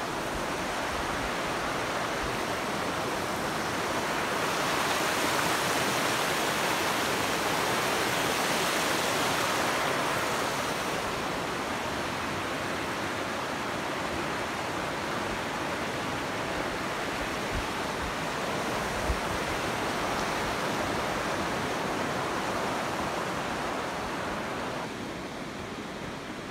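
Shallow mountain river rushing over a rocky bed, a steady wash of water noise. It swells for several seconds in the first half and turns quieter and duller near the end.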